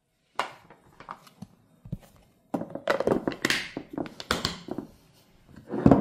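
Kitchen handling noise: a string of knocks, taps and clatter from dishes and utensils. It is busiest from about two and a half seconds in, with a louder thunk near the end.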